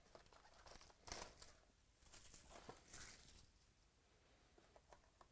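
Faint rustling and crinkling of trading card packs and cards being handled, with a few soft clicks and louder rustles about a second in and again about three seconds in.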